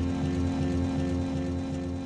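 Background music with a steady low pulse, slowly fading out.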